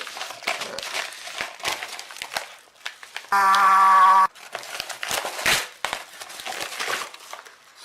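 A shipping mailer being torn open and its packaging crinkled and rustled. About a third of the way in, a loud steady squeal sounds for about a second and stops suddenly.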